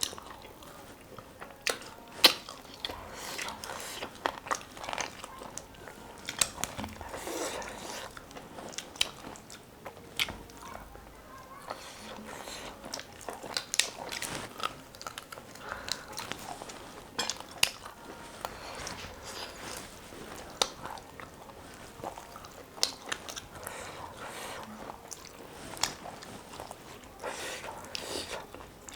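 A person eating close to the microphone, biting and chewing with crisp crunches at irregular moments.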